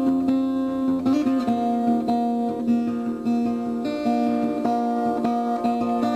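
Background music on acoustic guitar, a run of plucked notes left ringing over one another.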